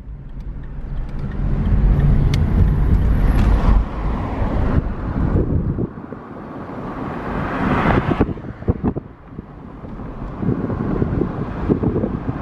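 A vehicle rumbling, loudest in the first four seconds, then uneven, gusty noise with frequent low thumps.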